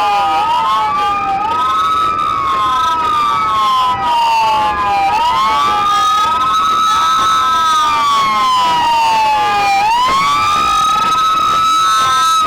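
Several police car sirens wailing together, each rising and falling slowly and out of step with the others, so the wails overlap and cross.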